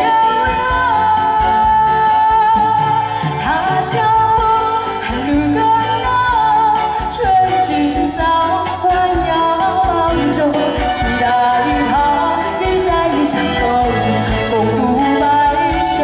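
A woman singing a Chinese pop song live into a microphone, backed by a live band with keyboard, amplified through a PA.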